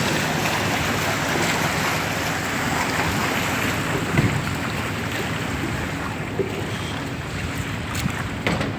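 Small motorboat under way on a river: its engine runs steadily under the rush of water past the hull, with wind buffeting the microphone.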